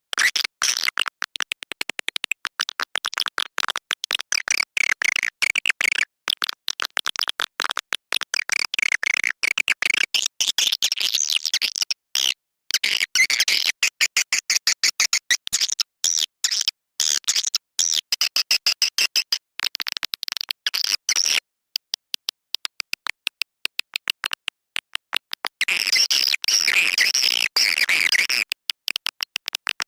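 Swiftlet lure-call recording: fast trains of clicks mixed with shrill twittering chirps, the kind of playback used to draw swiftlets into a nesting house. The clicking thins out in a few short gaps, and near the end a denser stretch of twittering comes in.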